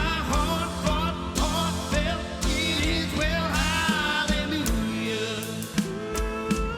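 A church worship band plays a contemporary worship song with a steady drum beat, sustained chords and a melodic vocal or lead line between sung phrases.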